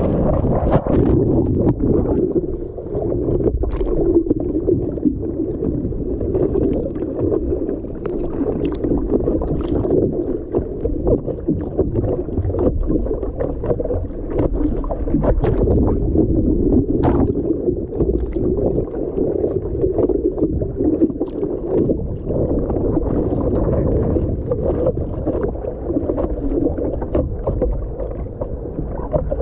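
Seawater rushing and splashing against a surfboard as it is paddled prone through small waves, heard from a camera mounted on the board's nose, with frequent short splashes from the arm strokes.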